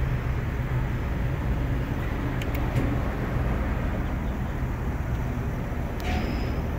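Freightliner Sprinter van's engine idling, heard from inside the cab as a steady low rumble, with a few light clicks.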